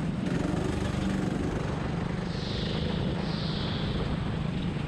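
Rental go-kart's engine running steadily as the kart laps the track, heard from on board. Two short hissy sounds come a little past halfway.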